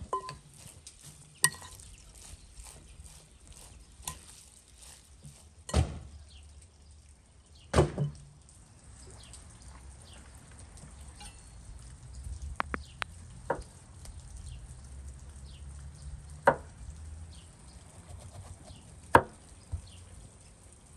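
Chef's knife and zucchini knocking on a thick wooden cutting board as the zucchini ends are trimmed off: about ten separate sharp knocks a few seconds apart, with softer handling sounds between them.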